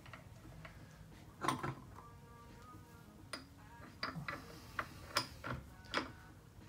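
Scattered light clicks and metal clinks of tools and parts being handled on a workbench, one cluster about a second and a half in and several more in quick succession in the second half.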